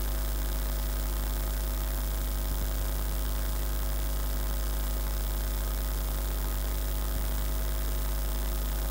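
Steady electrical mains hum, a low drone with a series of evenly spaced overtones and a faint hiss behind it.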